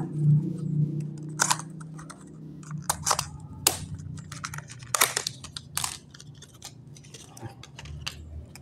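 Scattered light clicks and taps of hands handling a laptop RAM module and small plastic parts, with a few sharper clicks around three and five seconds in. Background music fades out over the first two seconds.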